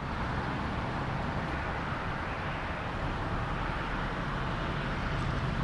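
Steady noise of a car driving along, with an even engine and road rumble.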